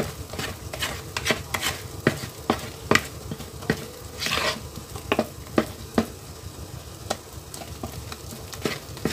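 Silicone spatula stirring thick, wet chocolate cake batter in a mixing bowl: irregular sharp knocks of the spatula against the bowl about once or twice a second, over soft wet squelching, with a longer scraping swish about four seconds in.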